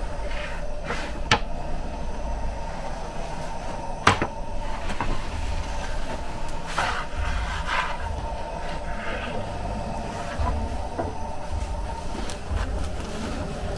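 A long wooden baker's peel scraping across the stone floor of a bread oven and knocking against it, with two sharp knocks about a second in and about four seconds in, over a steady low rumble.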